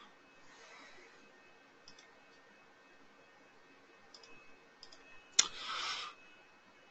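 Computer mouse clicking a few separate times, faint, with a sharper click about five seconds in followed by a brief hiss.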